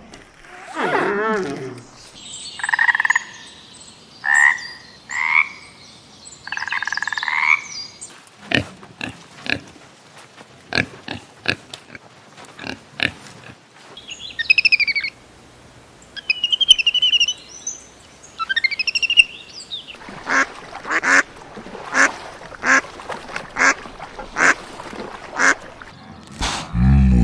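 A series of short animal sound recordings, one after another, with calls, chirps and a run of evenly spaced croak-like pulses, and a low, loud call starting near the end.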